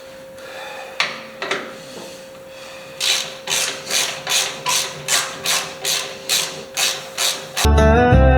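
Ratchet wrench loosening hood bolts: a couple of single clicks, then a steady run of back-and-forth ratcheting strokes, about two a second. Country steel-guitar music cuts in suddenly near the end.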